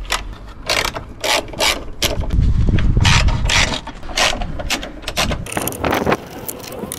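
Socket ratchet clicking in quick runs of strokes as bolts are undone.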